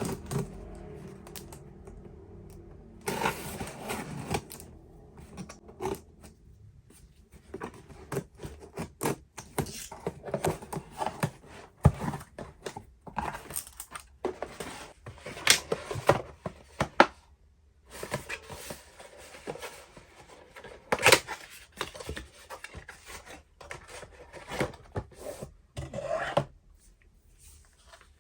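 Irregular handling noises: scraping, taps and sharp clicks of small objects being worked by hand, with short quiet gaps in between.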